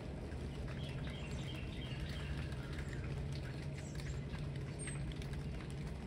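Small birds chirping, with a quick run of high chirps about a second in, over scattered dripping of rain after a shower and a steady low rumble of a distant freight train.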